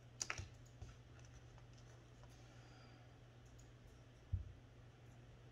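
A few small, sharp clicks of pliers and a metal diamond-painting pen tip being handled in the first second, then a single dull thump about four seconds in, over a faint steady hum.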